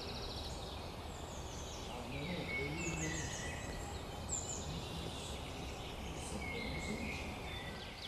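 Several woodland birds singing and calling at once: short chirps, trills and quick falling whistles, over a steady low rumble.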